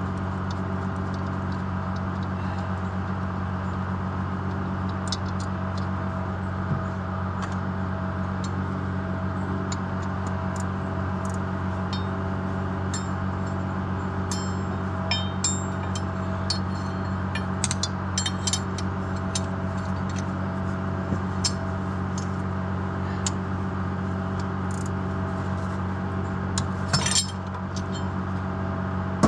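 Steady machine hum under intermittent metallic clinks and taps of hand tools on steel, as the damper's inertia ring is worked loose; a louder clatter of metal comes a couple of seconds before the end.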